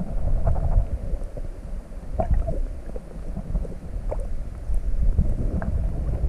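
Muffled low rumble of river water moving around a submerged camera housing, with a few faint clicks and knocks.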